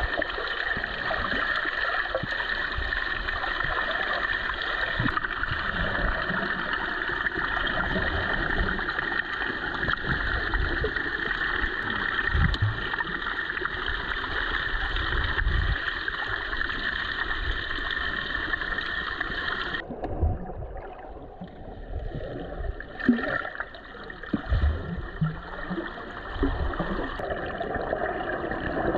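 Water sloshing, gurgling and splashing, heard through a GoPro's microphone while snorkelling. About twenty seconds in, the bright hiss cuts off suddenly, leaving a duller gurgle with scattered low thumps.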